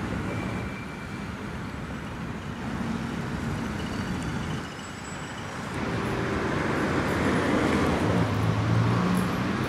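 City road traffic going by: a steady rush of passing cars, growing louder in the second half as a vehicle comes closer, its engine hum rising near the end.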